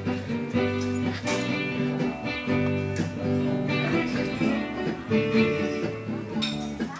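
Live guitar-led music: strummed acoustic guitar chords over a bass line, playing an instrumental passage without singing.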